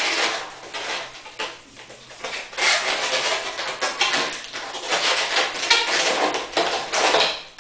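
Inflated latex modelling balloon squeaking and rubbing as it is bent into a loop and its ends are twisted together by hand. The squeaks come in quick, dense runs, easing off briefly before a second in and picking up again from about two and a half seconds.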